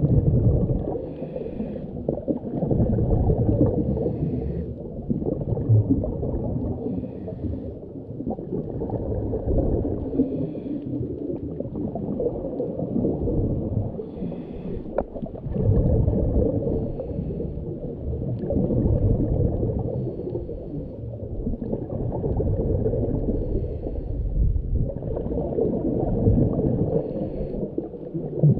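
Scuba diver breathing through a regulator underwater: a bubbling, rumbling exhale about every three seconds, with quieter gaps between. There is a single sharp click about halfway through.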